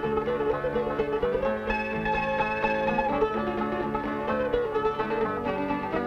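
Background music on plucked string instruments in a bluegrass style.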